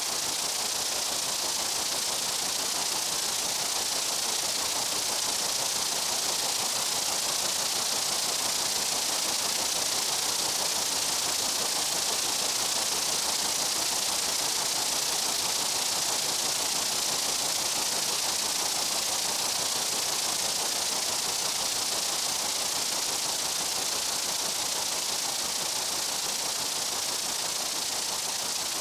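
Steady, dense buzzing of many insects in a meadow, a constant hiss-like drone sitting high in pitch that does not change.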